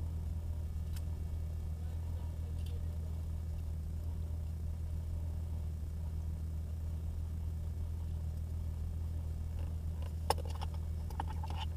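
Car engine idling, heard from inside the cabin as a steady low hum, with a few faint clicks and a short burst of rattling and clicking near the end.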